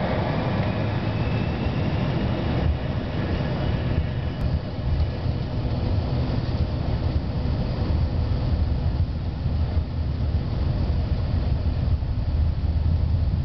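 Airliner engines heard from inside the passenger cabin, a steady low rumble with rushing noise as the plane rolls along the runway, with a faint rising whine near the start.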